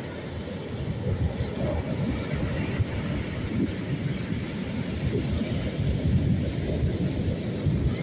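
Rough sea: heavy surf breaking and washing up a sand beach, a steady low rush with no pauses.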